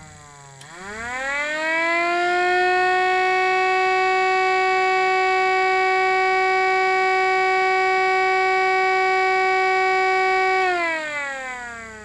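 Miniature 3D-printed Federal Signal STL-10 siren, spun by a small 130-size DC motor, cycling through an attack signal. It winds down, a click comes about half a second in as the motor comes back on, and the pitch rises quickly to a steady high wail. The wail holds for about eight seconds, then winds down again near the end.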